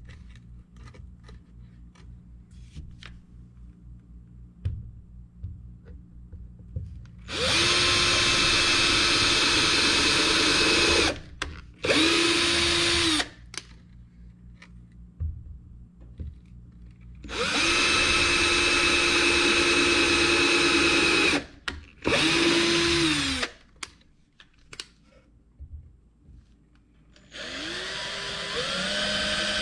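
Power drill working on the wooden birdhouse pieces, run in four bursts of a few seconds with a steady whine that drops in pitch each time the trigger is released, then spinning up again near the end. Before the first run there are only light handling knocks.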